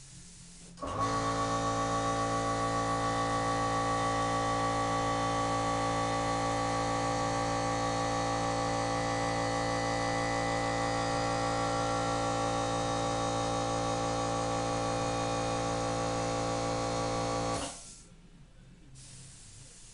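Small 3-gallon oil-lubricated Craftsman piston air compressor kicking on about a second in and running steadily for about seventeen seconds before cutting off, refilling its tank after the spray gun has drawn the pressure down. A faint hiss from the mini HVLP detail spray gun comes before it starts and after it stops.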